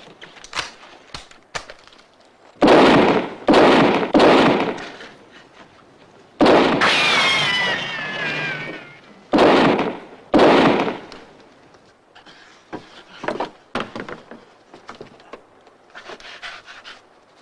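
About six loud, sharp gunshots with echoing tails, spread over roughly eight seconds, in a film shootout. One shot near the middle runs into a long falling, wavering wail lasting about two seconds. Fainter knocks and clatter follow near the end.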